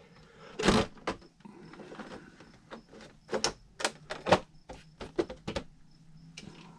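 A run of irregular clicks and knocks from hard objects being handled, with louder knocks about a second in and near the middle.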